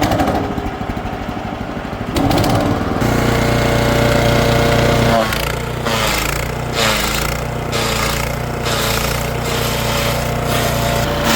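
Woodchipper/shredder engine running after starting, picking up speed about two and three seconds in. From about halfway through a repeated churning pulse comes a bit more than once a second over the engine.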